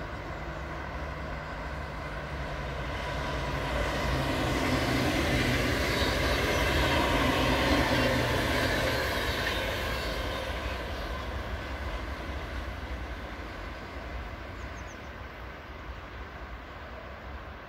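Two coupled NS ICMm 'Koploper' electric intercity trainsets passing at speed. The rush of wheels on rail swells, is loudest about seven seconds in, then fades steadily as the train runs away.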